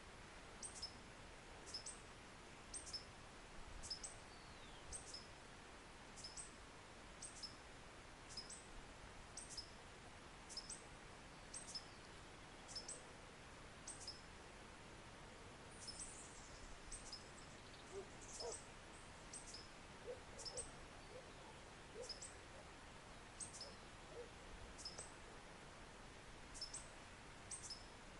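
Green violetear hummingbird singing: a short, high, thin note repeated about once a second, on and on. A few faint lower notes come in about two-thirds of the way through.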